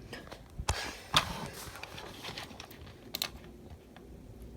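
A few separate short clicks and taps, the loudest about a second in and a couple more near three seconds, over faint low background noise.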